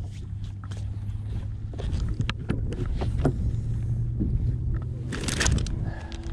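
Scattered knocks and clicks of gear being handled on a bass boat's deck. About five seconds in, a deck storage compartment is opened and a plastic bag of soft plastic worms crinkles briefly, all over a steady low rumble.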